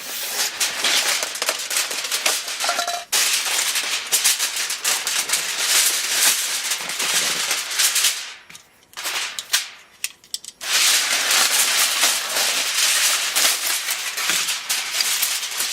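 A sheet of aluminium foil crinkling and crackling as it is torn off and handled, with a short lull a little past halfway.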